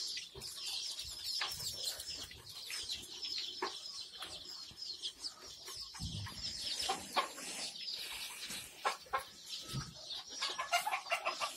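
A brood of young Kadaknath and desi chicks, about 10 to 15 days old, peeping together: many short, high, falling cheeps overlapping, with a few knocks in between.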